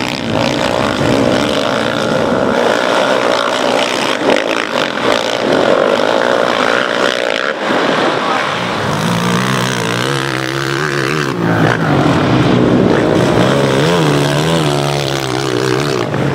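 Several racing quad ATV engines revving hard, their pitch climbing and dropping again and again with throttle and gear changes.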